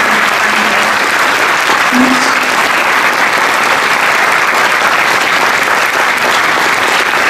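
Audience applauding, steady clapping.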